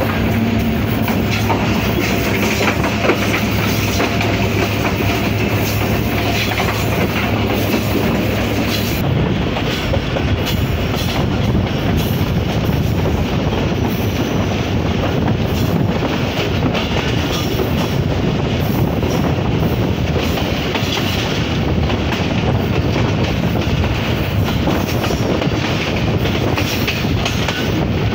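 Diesel-hauled passenger train running along the track, heard from a coach: a steady loud rumble and clatter of wheels on rail. A low steady hum is heard under it for about the first nine seconds, then drops away.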